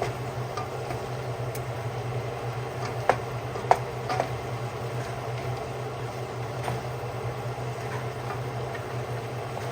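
Meat browning in a frying pan on the stove: a steady sizzle over a low hum, with a few sharp clicks and pops, the loudest about three to four seconds in.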